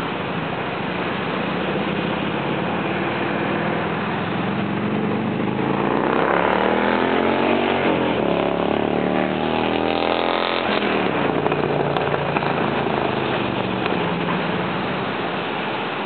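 Steady outdoor background noise, with an engine passing by from about six to eleven seconds in, its tone sweeping in pitch as it goes past.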